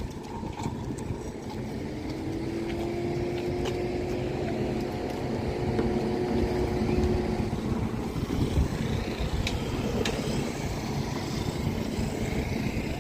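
Engine running with a steady low rumble, and a faint tone that rises slightly in pitch for a few seconds before fading out.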